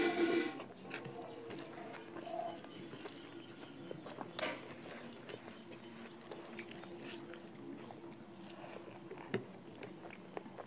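Close-miked mouth sounds of a person chewing a mouthful of chicken curry and rice, with small wet clicks and smacks. There is a brief voiced sound right at the start.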